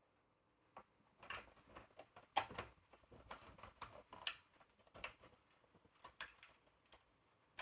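Faint clicks, taps and rustles of wires and a wire nut being handled and tucked into the plastic housing of an exit sign, with a sharper click about two and a half seconds in.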